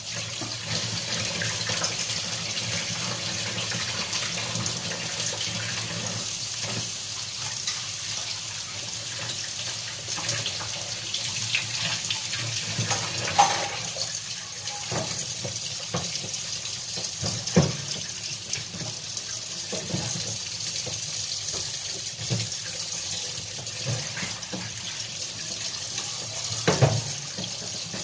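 Kitchen tap running into a sink while dishes are washed, with a few clinks and knocks of utensils, the loudest about halfway through and near the end.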